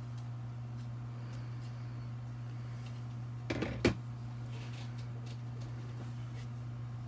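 2020 Topps baseball cards being flipped through by hand over a steady low hum: faint ticks of card edges, then a short rustle ending in a sharp snap about three and a half seconds in.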